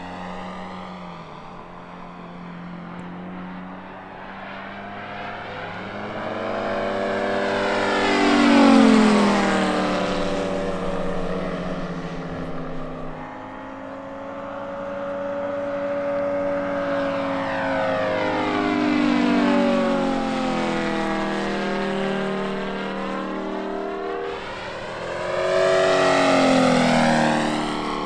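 Moki 250 five-cylinder radial engine of a large-scale RC La-7 warbird model in flight. It makes three passes, the engine note swelling and then dropping in pitch as the plane goes by; the loudest pass is about nine seconds in, with others around twenty and twenty-six seconds.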